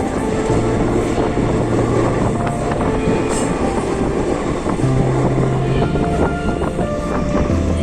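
Passenger train running along the track, heard from on board: a steady rumble with scattered clicks of the wheels over the rail joints.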